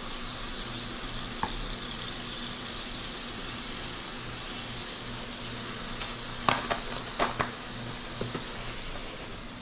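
Shrimp sizzling steadily in a pan of garlic butter, olive oil and white wine sauce. A few sharp knocks come about six to seven and a half seconds in.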